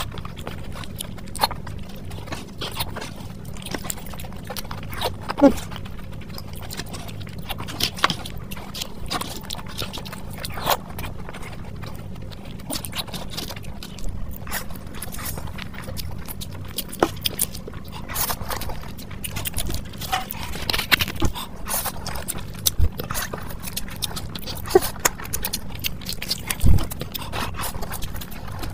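Close-miked eating: wet chewing and lip-smacking with irregular clicks from the mouth, and slurps as forkfuls of Maggi instant noodles are taken, over a steady low hum.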